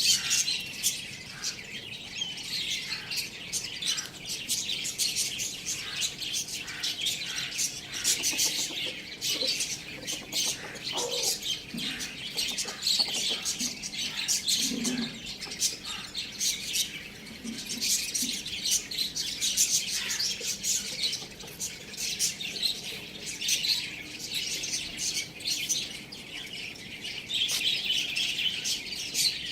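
Many small birds chirping and twittering together without pause, a dense mass of quick, high chirps.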